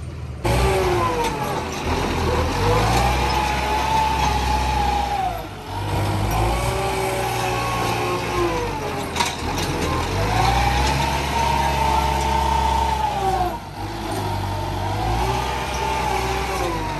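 Farm tractor's engine revving up and down in long cycles: it rises, holds for a few seconds and drops back, about four times.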